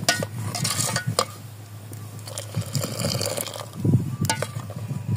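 Metal ladle clinking against the rim of a metal pot of milk tea a few times, with tea poured back into the pot from the raised ladle and splashing.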